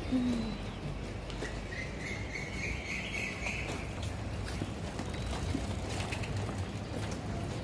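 Outdoor background noise: a steady low rumble with scattered small clicks, and faint bird chirping about two to three and a half seconds in.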